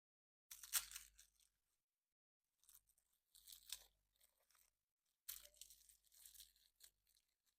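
Wrapper of a surprise egg crinkling and tearing as it is opened. Three separate bouts of crackly rustling come with short pauses between them.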